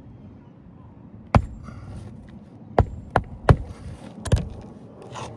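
Roofing nails being driven into asphalt shingles with sharp strikes: one about a second in, then three in quick succession and one more a little later.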